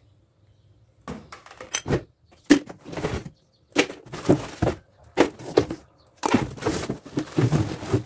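Handling of packaging while fan parts are taken out of a cardboard box: five irregular bursts of cardboard scraping and plastic wrap crinkling, with light knocks. The longest burst comes near the end as the plastic-wrapped fan motor is lifted out.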